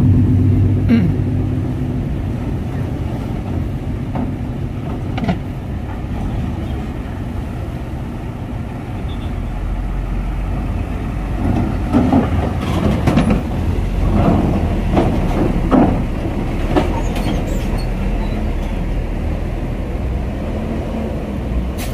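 Heavy trucks' diesel engines running and moving at the ferry loading area, a continuous low rumble that deepens about ten seconds in. A cluster of knocks and clanks comes between about twelve and seventeen seconds.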